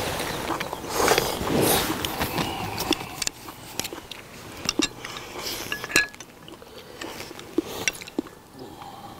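Someone eating from a small bowl with chopsticks: slurping and chewing, with a few sharp clicks of the chopsticks against the bowl, louder in the first three seconds.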